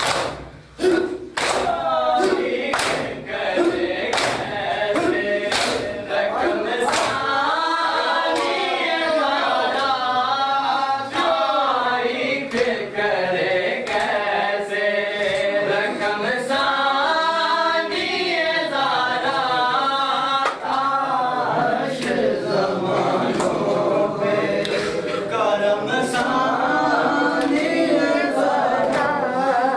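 A group of men chanting a Muharram noha lament in unison, with rhythmic chest-beating (matam) slaps on a steady beat. The slaps are loudest for the first several seconds; after that the chanting dominates and the slaps go on more faintly.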